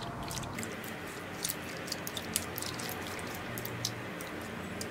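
A spoon stirring raw prawns in a thin, watery spice mix in a non-stick pot: light, scattered clicks and scrapes of the spoon against the pot over a steady low background noise.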